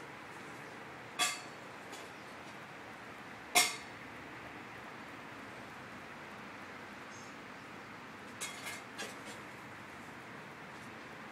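Hydrogen peroxide fizzing steadily in muddy water in a trench through a concrete slab, a faint hiss. A few sharp clicks and pops cut through it: one about a second in, one at three and a half seconds, and a quick cluster near nine seconds.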